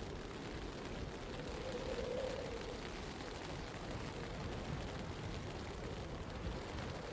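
Steady rushing blizzard wind with a deep rumble, and a faint hum that swells about two seconds in.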